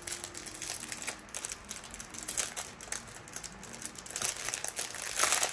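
Clear plastic packaging rustling and crinkling as it is handled, with scattered light clicks that grow busier near the end.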